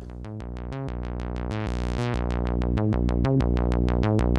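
Analog Eurorack VCO (Tenderfoot Electronics Source) playing a fast sequenced bass line of short, sharp synth notes, its sawtooth mixed with white noise through the Confluence wave mixer. There is a brief swell of hiss about two seconds in, and the sound grows steadily louder.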